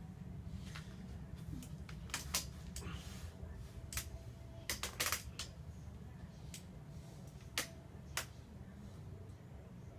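Irregular sharp clicks or taps, about ten, mostly between two and eight seconds in, over a steady low rumble.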